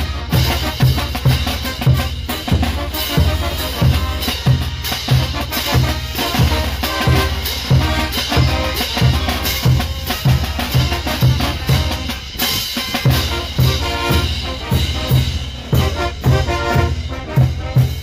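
Brass band playing, led by bass drums beating a steady, even rhythm with snare drum and crash cymbals, over baritone horns.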